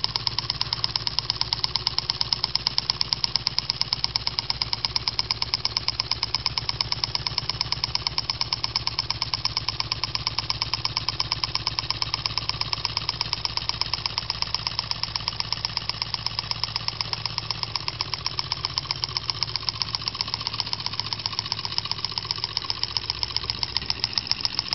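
Homemade gamma-type Stirling hot-air engine with a paper power cylinder running steadily, with a fast, even ticking that holds its pace throughout.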